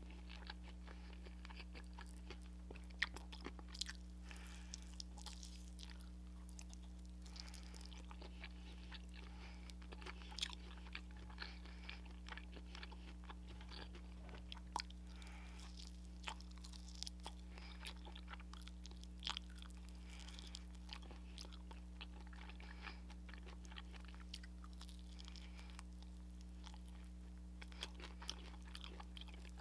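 Close-up biting and chewing of crispy fried soy chicken: scattered crunches of the fried coating and wet mouth clicks at an irregular pace, with a few louder crunches.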